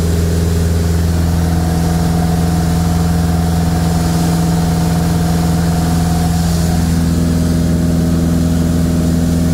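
A light aircraft's engine and propeller drone steadily, heard from inside the cabin in climbing flight. The low, even hum holds constant pitch, with a slight shift in its higher tones about six and a half seconds in.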